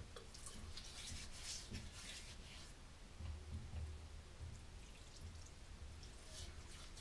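Soapy water poured into the hands and splashed onto the face over a sink, with small irregular splashes and drips, and a low dull bump about three seconds in.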